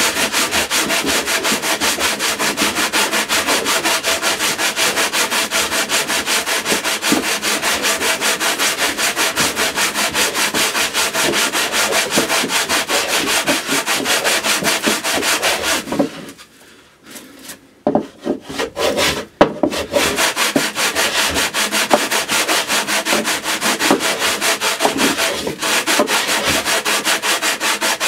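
Hand sanding of a spruce cello top: quick, even back-and-forth strokes of a sanding block on the arched wood, several a second. The strokes stop for a few seconds a little past halfway, with a few scattered strokes in the gap, then resume.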